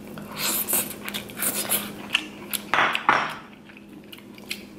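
Close-up eating sounds of king crab legs: wet chewing and smacking of crab meat, then the crackle of the crab shell being cracked and pulled apart by hand, loudest about three seconds in. A faint low hum runs underneath.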